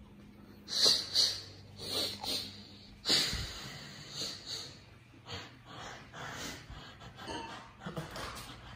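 A series of breathy puffs and snorts of air. The sharpest come about a second in, two seconds in and three seconds in, and softer ones follow.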